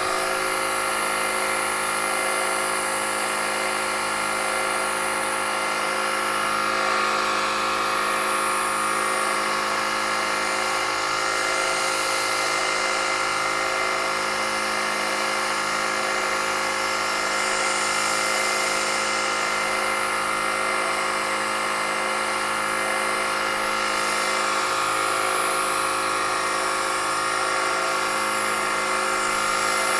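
Milling machine spindle running at about 3200 RPM on its VFD, an end mill cutting a full-width slot in a metal swage block by conventional milling. It makes an even whine of several held tones that does not change.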